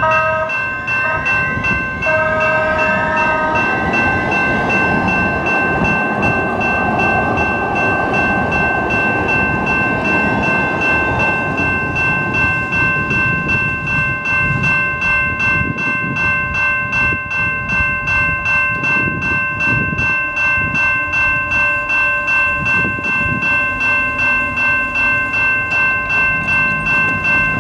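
General Signals Type 2 electronic crossing bell ringing steadily, with even pulsing strokes, through the whole activation, then cutting off at the end as the gates rise. Near the start a train horn sounds a short blast and then a longer one, and a train then rumbles across the crossing.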